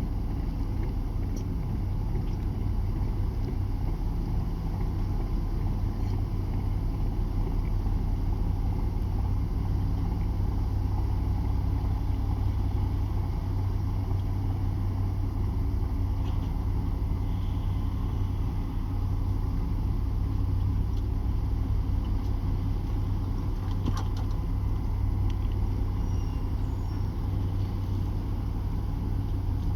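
Large boat's diesel engine running steadily, a deep even drone.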